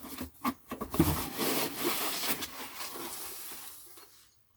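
Handling of 3D-printed plastic parts: a few light clicks and knocks, then a scratchy rubbing and rustling that fades out about four seconds in and gives way to dead silence.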